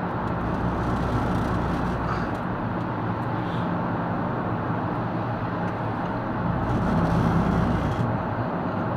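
Steady road and engine noise heard from inside a car's cabin as it drives through a road tunnel. A deeper drone swells in twice, at the start and again about two-thirds of the way through.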